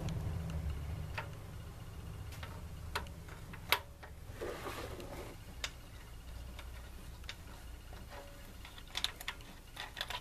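Sparse light metallic clicks and taps, the sharpest about four seconds in and a few more near the end, as oil-soaked hydraulic lifters are handled and set into the Jeep 2.5L four-cylinder's lifter bores.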